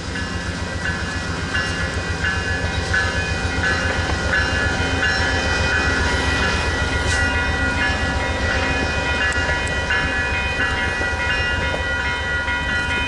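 VIA Rail passenger train's coaches rolling past, wheels clattering with a steady low rumble that swells toward the middle. Steady high-pitched tones ring over it, cutting in and out every second or so.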